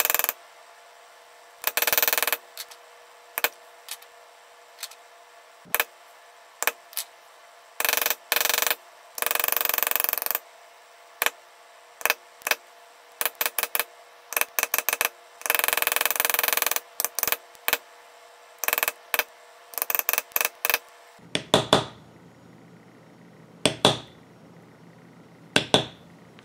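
A hand-held leather tool rubbing and scraping over carved leather in irregular strokes, some over a second long and many brief. Near the end come a few sharper clicks and taps.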